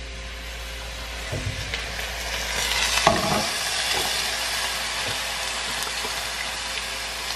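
Food sizzling in a frying pan on the stove, the sizzle swelling about two and a half seconds in and then holding steady, with a couple of knocks from the pan or utensils.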